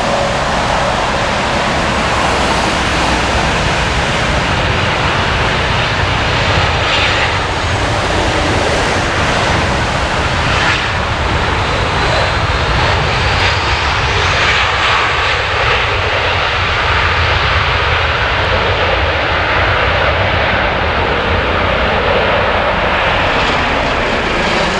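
Boeing 737-700 airliner's CFM56 jet engines during landing: a loud, steady rush of engine noise.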